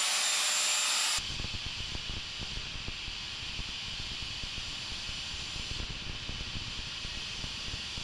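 Angle grinder with a cutting disc running at full speed with a steady high whine. About a second in the sound drops to a quieter, steady hiss with a low rumble as the grinder is brought to the old motorcycle drive chain held in a vise.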